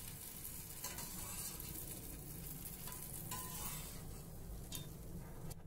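A small test drop of rice-and-lentil dhuska batter frying in hot mustard oil in a steel kadhai, a faint steady sizzle, with a few light clicks of a perforated steel skimmer against the pan. The sizzle shows the oil is at frying heat, since the test piece has floated up. The sizzle stops suddenly near the end.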